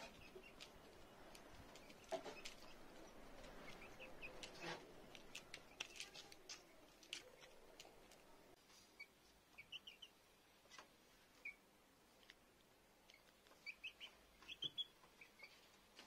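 Young chickens giving short, high peeps in small clusters, faint, along with light tapping of beaks pecking at grain in a plastic feeder dish.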